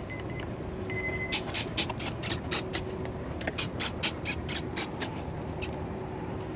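A short electronic beep from the RC plane's electronics, just after the flight battery is connected, followed by a run of sharp, irregular clicks.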